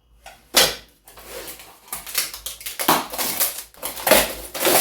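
Packaging rustling and crinkling in quick, irregular bursts as new dinnerware is handled and unpacked.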